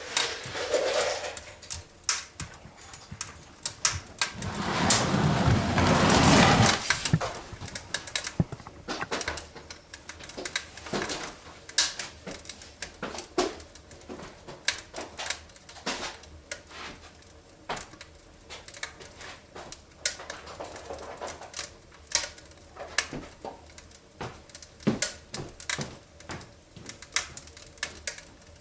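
Irregular small clicks and knocks throughout, with a louder rushing noise from about four to seven seconds in.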